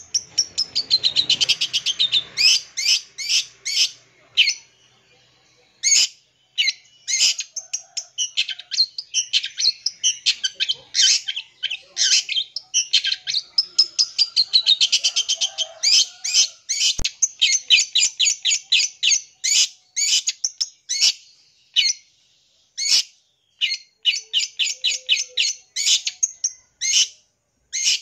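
Long-tailed shrike (cendet) singing a fast, varied song of rapid chips, chatters and quick trills, packed with mimicked notes of other birds, broken by short pauses.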